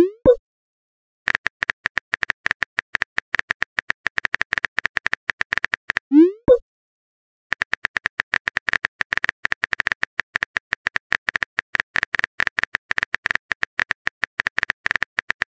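Rapid keyboard tapping clicks from a texting app in two long runs, with a short rising pop as each message is sent: at the start, about six seconds in, and again at the end.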